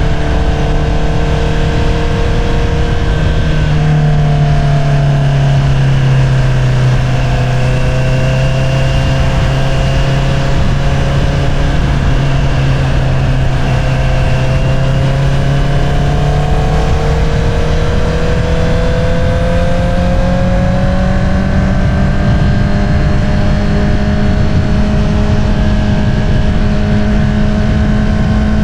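2022 Honda CBR650R's inline-four engine through an Akrapovič single-outlet exhaust, under way at moderate revs. The engine note eases down a few seconds in, holds low, then climbs gradually through the second half as the bike picks up speed.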